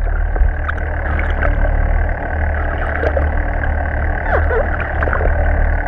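Steady low rumble of a boat engine with water noise, muffled as heard through a waterproof camera housing, with a few faint short glides over it.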